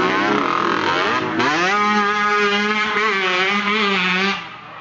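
Small dirt bike engine revving hard, climbing in pitch about a second and a half in and holding high and steady, then fading quickly near the end as the bike rides away.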